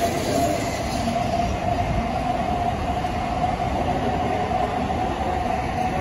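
N700A Shinkansen train pulling out along the platform: a steady rolling rumble with a steady whine.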